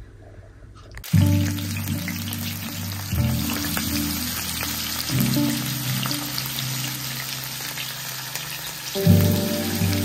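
Fish pieces frying in hot oil in a pan: a steady sizzle and crackle that starts about a second in. Background music with a deep bass line plays along with it.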